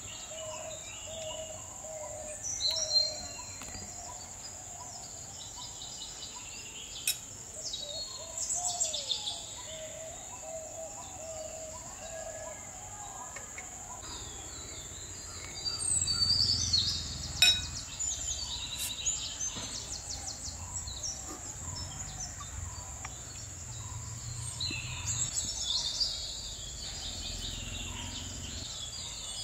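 Outdoor garden ambience: birds chirping and singing on and off over a steady high-pitched insect drone, with a few sharp clicks.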